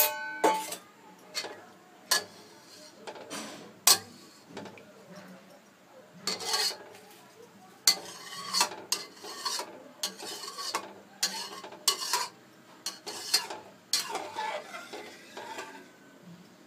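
Steel spoon stirring rice and water in an aluminium kadhai, with irregular clinks and scrapes against the pan. A loud clank with a brief metallic ring comes right at the start.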